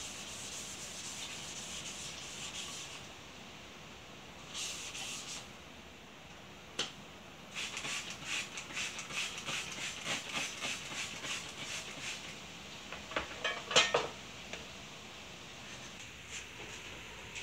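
Fine-grit wet sandpaper rubbing by hand over a brass lamp shade in short rasping strokes, with water squirted on from a spray bottle about halfway through. A few louder knocks come near the end.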